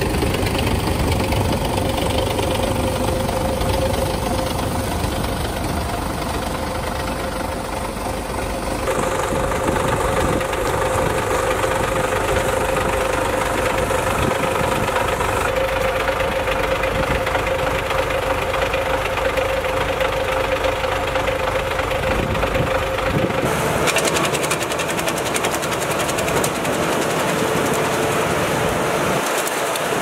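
Tractor diesel engine running steadily, driving a rear-mounted branch-cutting machine, with a steady humming tone through it. The sound changes abruptly about nine and twenty-three seconds in, and after that there is more hiss.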